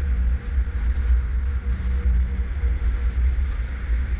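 A car moving slowly, heard from a camera mounted outside on its hood: an uneven low rumble with a faint steady hum above it.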